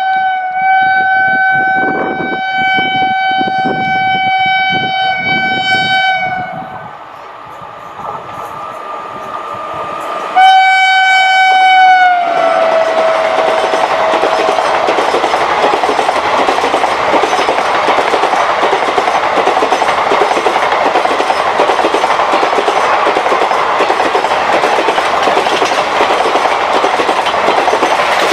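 WAP-5 electric locomotive's horn honking in a long, steady multi-note blast for about six seconds. After a short lull a second blast sounds, and its pitch drops as the locomotive goes by. Then the express's coaches rush past at speed, with a steady clatter of wheels on rail.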